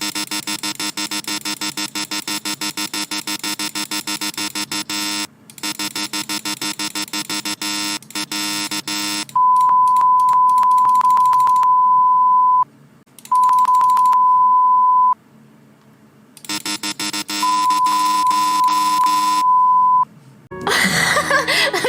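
A synthesized 'NG' buzzer-chime sound effect from a streamer's sound board, triggered rapidly over and over, several times a second. It is followed by three long, steady, high single-tone bleeps.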